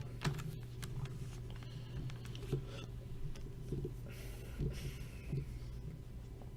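Faint scattered clicks and taps over a steady low hum, with a brief hiss about four seconds in.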